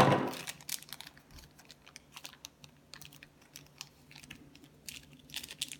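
Foil Shopkins blind-bag packet crinkling and crackling in quick, irregular clicks as it is pulled open and unfolded by hand, with one louder rustle at the very start.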